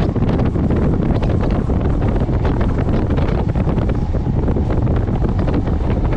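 Wind buffeting the microphone of a motorcycle on the move: a loud, steady rush of wind noise.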